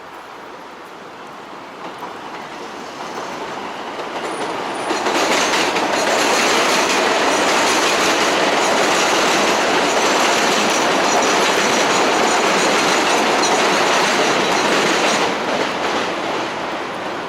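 New York City subway train passing: it builds over about five seconds, runs loud for about ten seconds, then fades.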